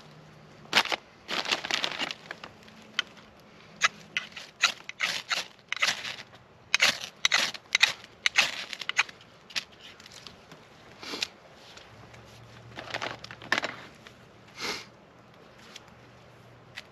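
A steel knife blade scraping a stick of fatwood in short, sharp strokes, coming in quick bunches for the first nine seconds or so and then only a few more, to make shavings and dust for a small tinder fire.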